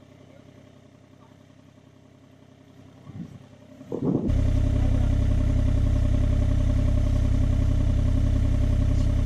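John Deere 35G compact excavator's diesel engine running: faint at first, then loud and steady from about four seconds in.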